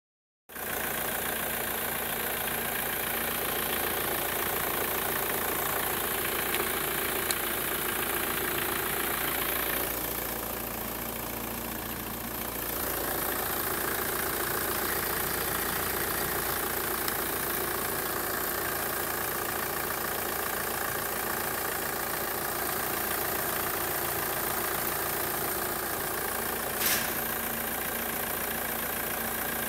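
Audi A4 B5 1.9 TDI (AFN) four-cylinder turbodiesel engine idling steadily in the open engine bay. It is a little quieter for a couple of seconds about ten seconds in, and there is a single sharp click near the end.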